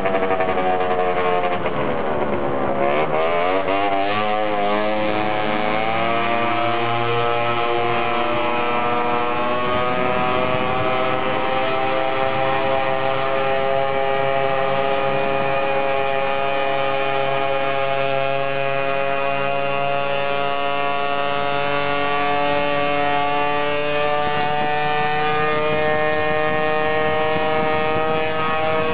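50cc two-stroke scooter engine running at speed: its pitch falls as it eases off about two to three seconds in, climbs again over the next several seconds as it accelerates, then holds high and steady, creeping slowly higher.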